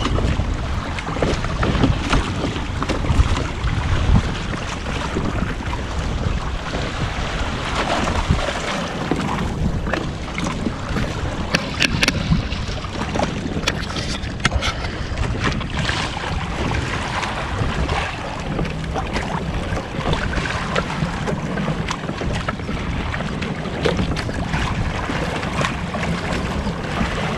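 Water rushing and splashing along the hull of a Hobie Adventure Island sailing kayak moving under sail, with wind buffeting the microphone. There are a few sharper splashes about halfway through.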